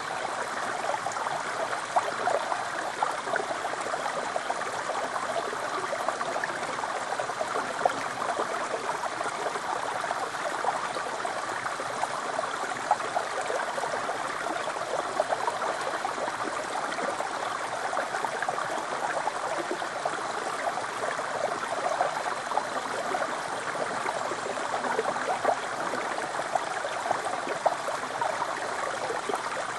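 Small mountain stream sliding down a rock slab and spilling into a pool: a steady babbling rush of water flecked with little splashes and bubbles.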